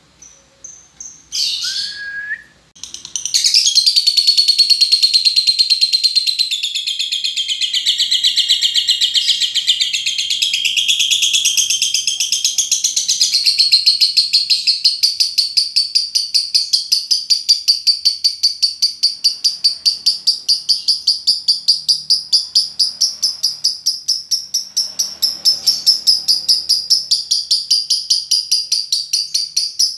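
Lovebird's 'ngekek' song: after a few short chirps, a long unbroken high-pitched chattering trill starts about three seconds in. Halfway through it settles into a fast, even rattle of repeated notes and keeps going without a break.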